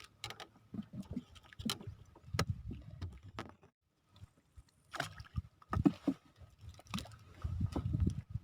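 Irregular knocks and splashes of water against a small fishing boat, with a brief lull about halfway through.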